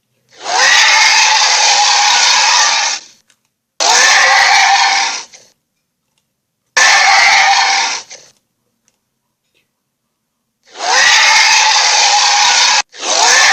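Made-up monster screeches as sound effects for a four-headed Loch Ness eel: four long, harsh screeches with silence between them, and a fifth starting near the end.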